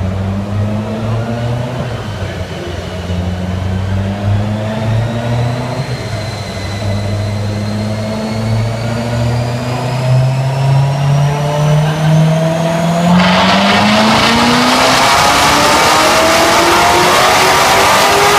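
2015 Corvette Z06's supercharged V8 on a chassis dyno, pulling under load with its pitch climbing steadily as the revs rise. About two-thirds of the way in it turns much louder and harsher.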